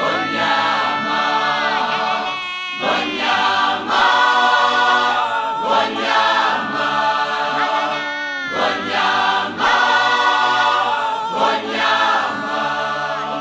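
A choir chanting in Zulu in full harmony, in sustained phrases of a few seconds each, with short breaks between them.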